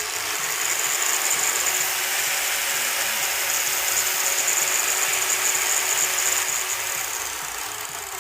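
Hitachi 4-inch 600 W angle grinder with an iron-cutting disc, switched on and running steadily with a high whine, then winding down near the end.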